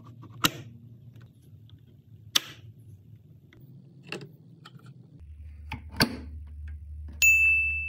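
A homemade PVC-pipe sliding bolt latch clicking sharply against and into its plastic keeper, a few separate clicks about two seconds apart. Near the end a loud, steady high-pitched beep sounds.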